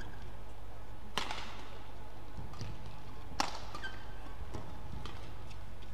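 Badminton rally: rackets striking the shuttlecock, with sharp cracks about a second in and again about three and a half seconds in, and fainter hits between and after. A steady low hum sits underneath.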